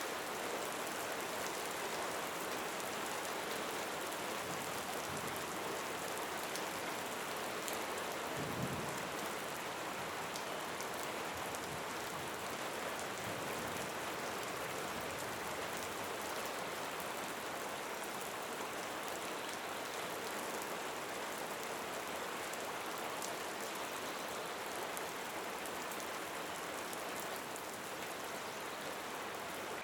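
Steady rain falling, an even hiss with scattered fine drop ticks. A brief low thump about eight and a half seconds in.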